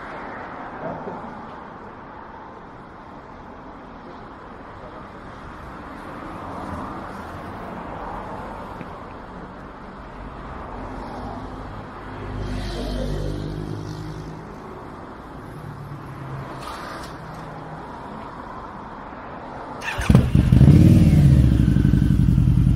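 Harley-Davidson custom motorcycle's V-twin engine started near the end: a sudden loud catch, a short rise in revs, then a steady idle. Before that, low street background with a vehicle engine briefly swelling and fading about midway.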